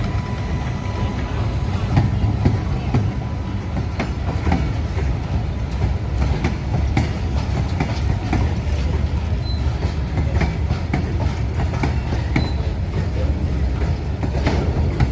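Freight train rolling past: a steady low rumble of steel wheels on rail, with irregular clicks as the covered goods wagons pass over the rail joints.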